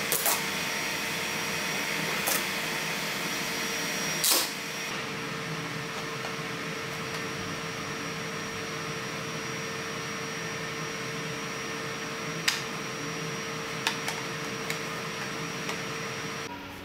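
Steady fan hum with a thin high tone, broken by a few sharp clicks and snaps as a freshly printed ABS phone case is flexed off a flexible build plate and handled. The loudest snap comes about four seconds in.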